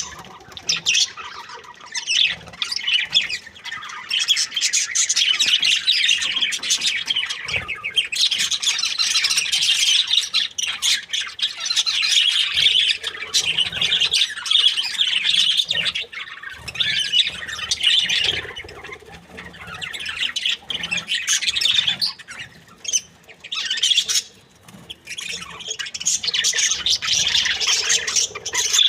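A group of budgerigars chirping and chattering, a dense, high-pitched twittering with a few brief lulls.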